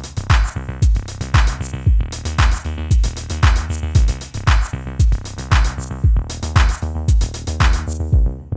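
Background music: an electronic track with a steady drum-machine beat, about two kicks a second.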